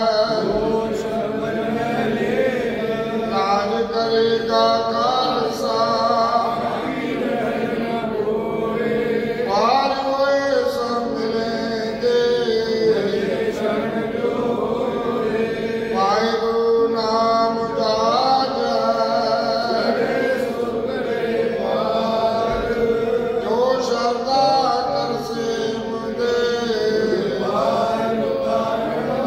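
Sikh congregation chanting gurbani together, voices sliding between notes over a steady held drone note.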